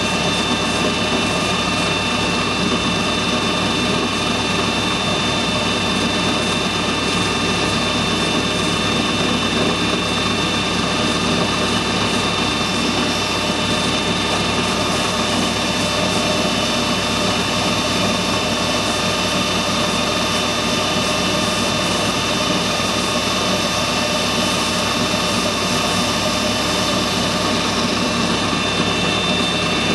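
Metal lathe running steadily at about 1,500 rpm, its drive giving a steady whine of several held tones while a taper is turned on the spinning chuck adapter.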